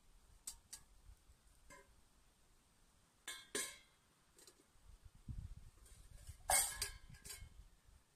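Small camp cookware clinking and knocking as it is handled, a few light taps followed by louder clusters of clinks about three and a half seconds in and again near the end.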